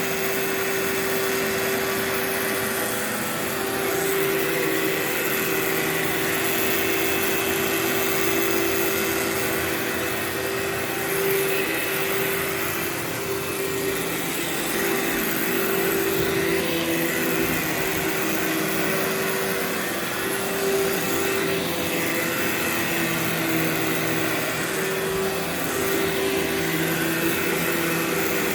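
Workhorse vacuum cleaner running steadily as it vacuums carpet: a constant motor whine over a rush of airflow, the pitch wavering slightly as it is worked back and forth.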